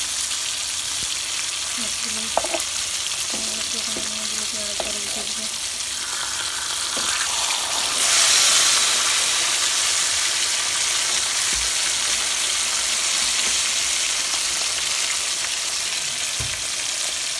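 Pangas fish steaks shallow-frying in hot oil in a pan: a steady sizzle that swells louder for a moment about eight seconds in.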